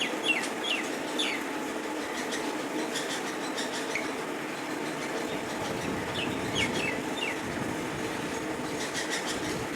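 An approaching train's steady rumble, which fills in lower in the second half. A bird gives runs of short downward-sliding chirps at the start and again about six seconds in.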